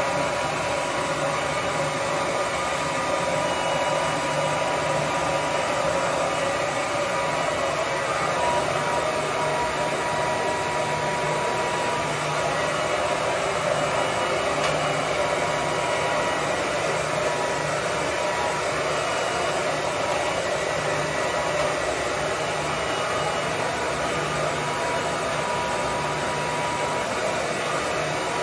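Hotel bathroom hair dryer on a coiled cord, running steadily while blow-drying hair: an even rush of air with a faint steady whine.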